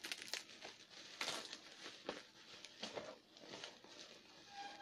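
Plastic bubble-wrap packaging crinkling and rustling in irregular short bursts as it is pulled at by hand; the wrapping is very tight.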